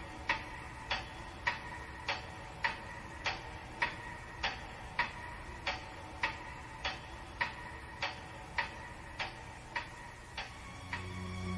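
Clock ticking steadily, a little under two ticks a second, as the recorded opening of a waltz song. Soft music comes in near the end.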